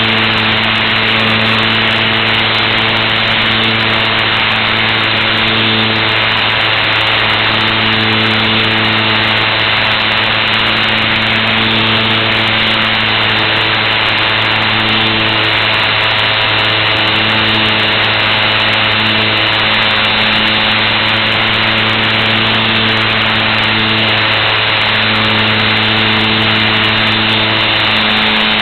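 Electric motor and propeller of a Super Cub LP radio-controlled model plane running steadily in flight, a constant hum with a higher tone that comes and goes, heard through the onboard camera's microphone with airflow noise.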